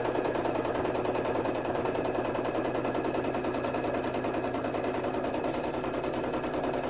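Domestic sewing machine stitching fast and steadily without a break, its needle going too quickly to count, as fabric and lace are free-motion stitched.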